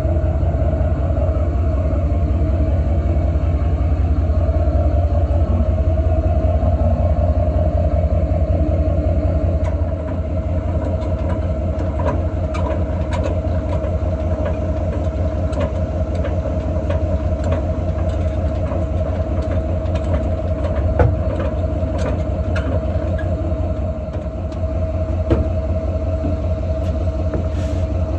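A vehicle running with a steady low rumble and a constant hum, with scattered clicks and rattles from about ten seconds in.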